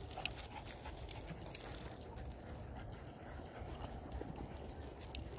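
Faint, irregular soft thumps and clicks of footfalls on grass, over a low steady rumble.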